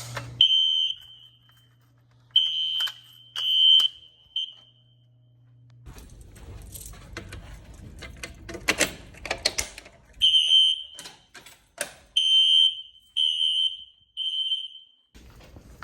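Fire alarm sounding short, high-pitched beeps, some in runs of three about a second apart, stopping for several seconds in the middle. Rustling and clicking noises fill the gap.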